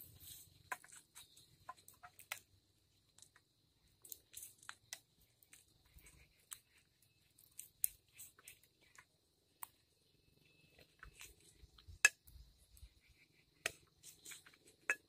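Metal ladle clinking and scraping against an aluminium pot as thick kheer is spooned out: scattered faint clicks and taps, the sharpest about twelve seconds in.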